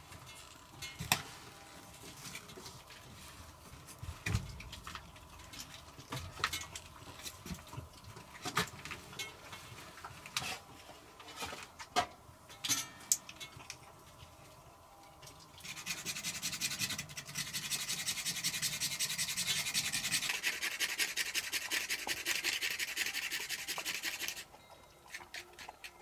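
Scattered knocks and rustles of handling, then a rapid, steady scraping of a knife on wood for about nine seconds, shaving fine tinder dust for lighting a fire, which cuts off suddenly.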